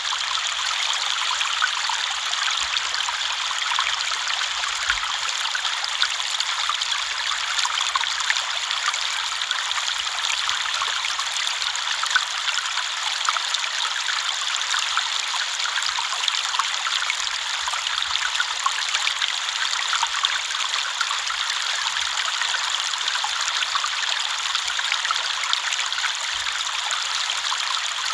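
River water flowing: a steady, even rush with a fine, busy texture of small splashes and little low rumble.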